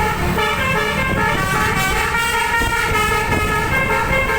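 Bus telolet musical air horn with twelve trumpets (Basuri type) playing a quick melody, note after note, over the low rumble of the engine and road.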